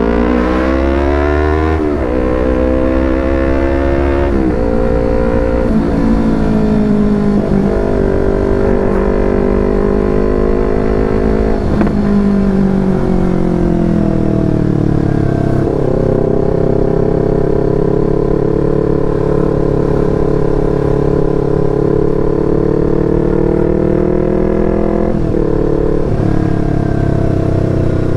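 Yamaha R25's parallel-twin engine through a Proliner TR1R short aftermarket exhaust while riding. Its revs climb and drop at several gear changes in the first few seconds, then hold steady for about ten seconds before another gear change near the end.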